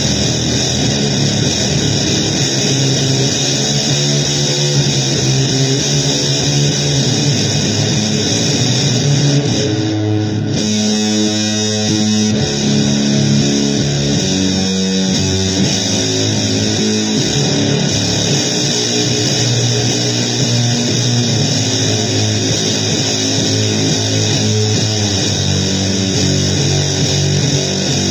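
Loud electric guitar playing held notes under a dense noisy wash, thinning briefly about ten seconds in.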